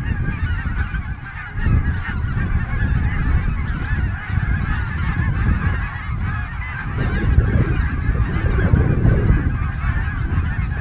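A large flock of snow geese calling, a dense, continuous chorus of overlapping high honks, with a low rumble underneath.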